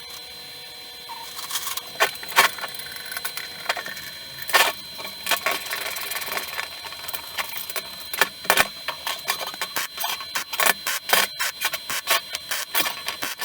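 Irregular clicks and light knocks of hand work on a workshop stool, coming thicker and faster in the second half, over a faint steady high tone.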